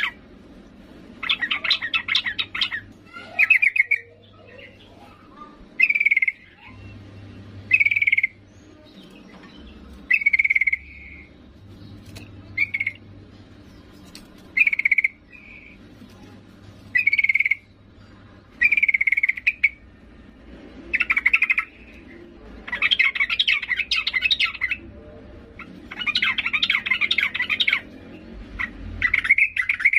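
Yellow-vented bulbul calling, which the uploader labels a female calling to males: short chirps about every two seconds, broken by longer rapid chattering bursts about a second in and again in the last third.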